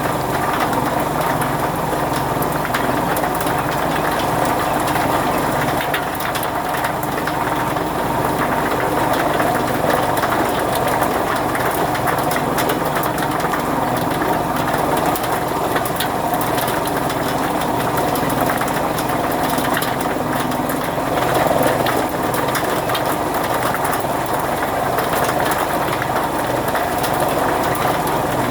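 Chaff cutter running steadily, a continuous mechanical drone with no pauses.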